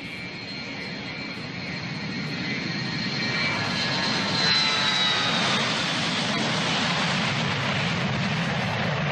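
A jet aircraft passing. Its noise builds over the first four seconds or so to a steady loud rush, and a high whine glides down in pitch as it goes by.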